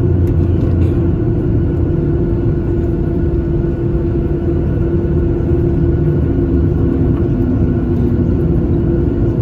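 Cabin noise inside a Boeing 737-800 on the ground after landing: the engines' steady hum over a constant low rumble from the airframe and wheels, typical of taxiing to the gate.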